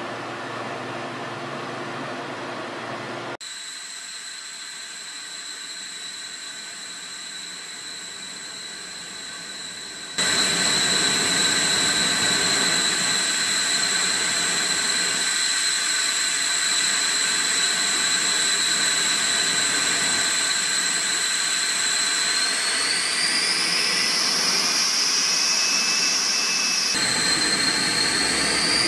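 T-38 Talon's twin J85 turbojets heard from the cockpit: a steady, high-pitched whine over a rushing roar. After abrupt changes early on it grows louder about ten seconds in, and over the last several seconds the whine rises in pitch as the engines spool up.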